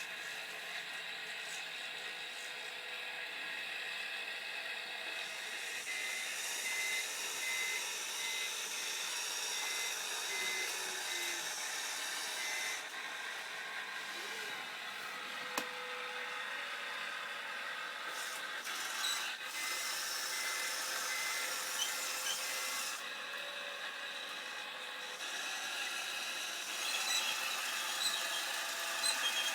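Bruder toy sound-and-light module playing a steady electronic engine-like noise, with a faint high-pitched beeping that runs for several seconds twice, like a reversing alarm, and a single sharp click partway through.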